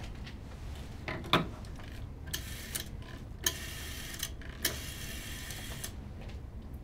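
Old rotary-dial telephone being dialled: a couple of clicks as the handset is handled, then three whirring dial returns, the last the longest.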